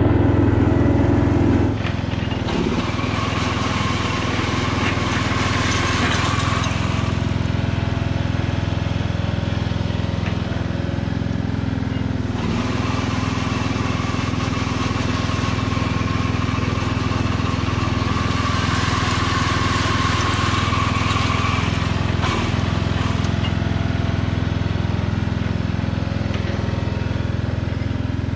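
Husqvarna Rider ride-on mower's engine running steadily with the Stiga rotating brush attachment fitted, a little quieter from about two seconds in. Three long stretches of louder rushing noise, each with a higher whine, rise and fall over the engine.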